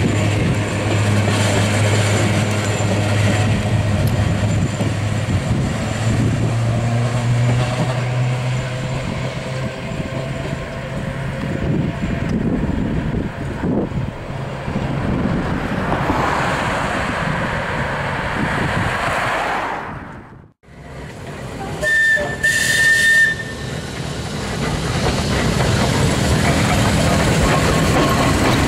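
Manx Electric Railway electric tramcars running on the line, with a steady low motor hum that steps up in pitch about six seconds in. Near the two-thirds mark the sound cuts out briefly, and a short high tone follows soon after.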